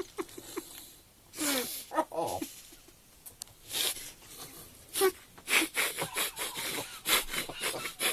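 People cramming dry cheese crackers into their mouths: crunching, with short breathy puffs and snorts through full mouths. It is sparse at first and comes thick and fast in the second half, with a brief 'oh' about two seconds in.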